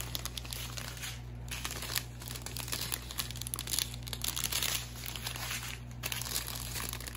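Strips of thin clear plastic drill bags for a diamond painting crinkling continuously as they are handled and shifted in the hands, over a steady low hum.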